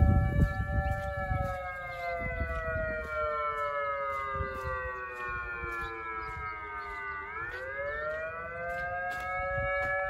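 Electronic siren sounding a wail from a single speaker at half power, set to a 575 Hz mode with a 9-to-12 port ratio, so it gives two tones a fourth apart. The pitch slides slowly down for about seven seconds, then climbs again.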